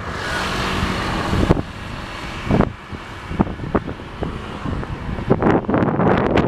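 Wind buffeting the microphone of a camera riding along on a moving bicycle, a rushing, rumbling noise with irregular gusts. It is strongest for the first second and a half, eases off, then gusts harder again near the end.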